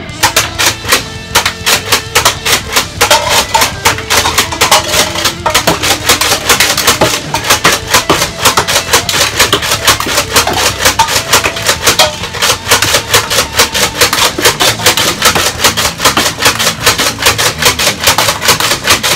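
Loud rock background music with a fast, steady beat.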